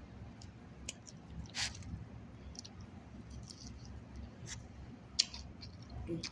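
A person chewing a mouthful of grilled chicken salad close to the microphone: soft, irregular wet mouth clicks and smacks, with a sharper one about a second and a half in and another about five seconds in.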